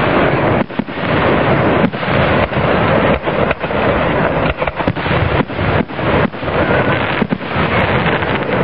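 Aerial fireworks bursting in quick succession: a loud, near-continuous barrage of bangs and crackle, with the sound dipping briefly many times as the microphone is overloaded.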